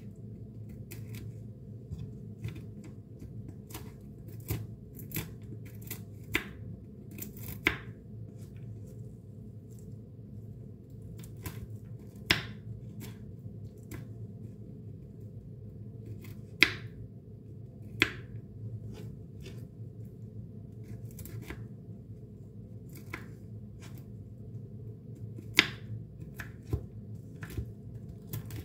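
Kitchen knife chopping walnuts on a wooden cutting board: irregular taps and crunches of the blade through the nuts, with a few sharper knocks on the board. A steady low hum runs underneath.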